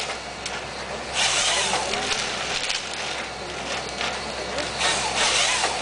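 Cat 314D hydraulic excavator's diesel engine and hydraulics running under load while its PE-42 harvester head works a felled stem, with a steady low hum and repeated hissing, scraping surges about every second or two.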